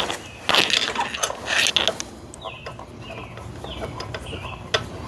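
Socket ratchet clicking in short bursts as 8mm bolts on a Honda Grom are turned, with a run of small chirping clicks and a sharp metallic click near the end.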